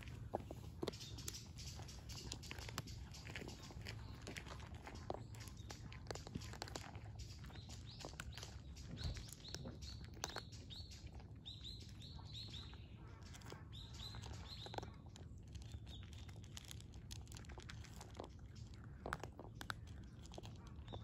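Two cats chewing and crunching dry kibble from bowls: irregular sharp crunches throughout. A small bird chirps repeatedly in quick short notes through the middle.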